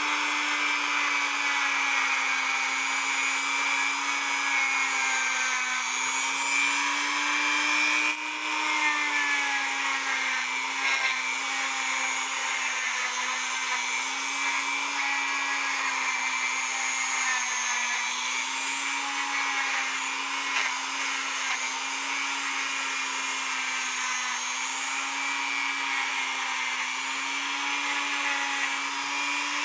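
Small handheld rotary tool running a wire brush against a cuckoo clock movement. The motor hums steadily, its pitch wavering slightly as the brush is pressed on, over a continuous scratchy hiss from the wire bristles.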